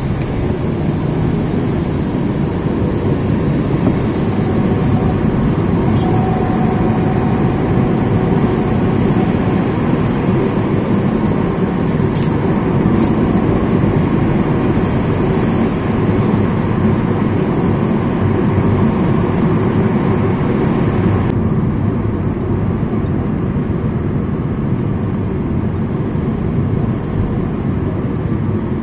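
Steady road noise inside a moving car's cabin: engine running and tyres rolling on wet asphalt. Two brief high clicks sound just after twelve seconds in.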